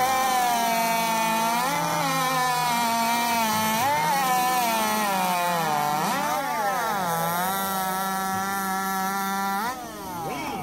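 Chainsaw running at full throttle while cutting through a log in a timed race, its pitch sagging under load and recovering several times. Near the end it rises sharply as the saw comes free, and then the sound falls away.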